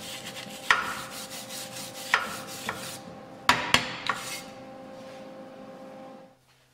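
Wire brush scrubbing the steel face of a homemade sawmill's band wheel: quick rough scraping strokes with a few sharper scrapes, dying away about four seconds in. A steady hum continues underneath and cuts off just before the end.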